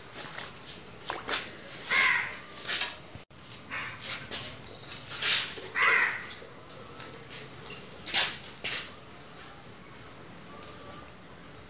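Birds calling: short high chirps repeated several times, and a couple of louder harsh calls about two and six seconds in. A few sudden sharp noises come from water and a landing net being handled at a fish tank.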